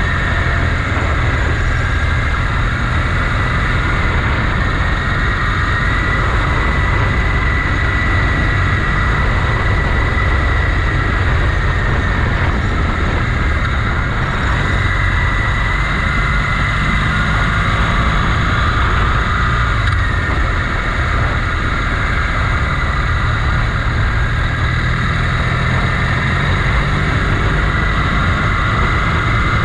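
Motorcycle engine running steadily while riding along, recorded on board, with a constant low rumble and a pitch that drifts a little up and down.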